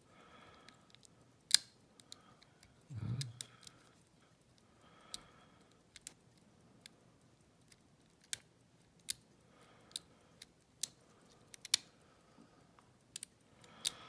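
Small sharp metal clicks at irregular intervals, with some light scraping, from a hook pick and tension wrench working the pins of a brass six-pin ERA euro cylinder lock. The tension is being released and the pins reset after a suspected overset pin.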